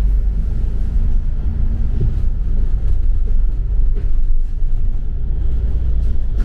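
Double-decker bus under way: a steady low rumble of engine and road noise.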